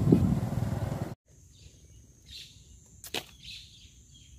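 A plucked-guitar intro tune cuts off abruptly about a second in. Faint open-air ambience follows: a steady high-pitched hum, a few short downward-sliding bird chirps, and a single sharp click.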